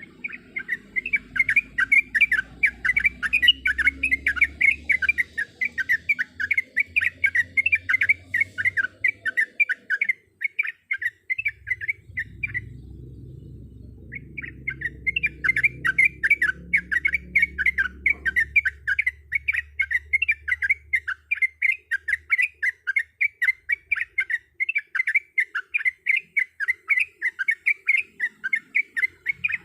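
Yellow-vented bulbul (trucukan) singing a fast, unbroken run of chattering notes, breaking off once for about a second near the middle before going on.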